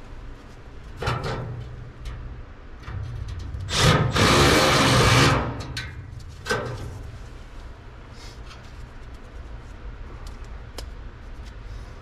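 Cordless impact driver running for about a second and a half, about four seconds in, working screws on the sheet-metal panel of an old gas furnace, with shorter rubbing and handling noises before and after and a sharp click. A steady low hum lies underneath.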